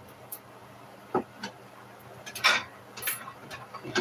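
Irregular light clicks and knocks of kitchenware being handled, with one louder clatter about two and a half seconds in.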